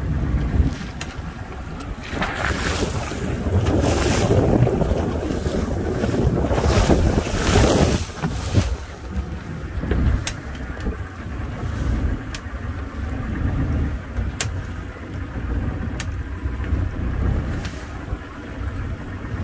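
A boat running through choppy seas with a steady low rumble of engine and hull, wind buffeting the microphone, and a loud rush of spray and wash over the bow from about two to eight seconds in. A few sharp ticks follow near the middle and end.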